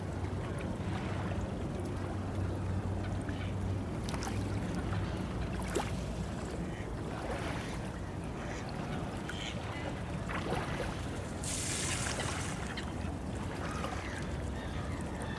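Low, steady engine hum of a passing motor passenger ship, strongest for the first few seconds and then fading into open-air lake ambience. Faint waterfowl calls and a few small clicks come through, and there is a brief hiss about twelve seconds in.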